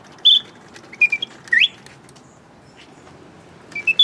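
Bontems singing bird automaton whistling its birdsong through its bellows-fed slide whistle: a few short high chirps and one rising whistle, then a pause of about two seconds before the chirping starts again near the end, imitating a bird taking a break in its song.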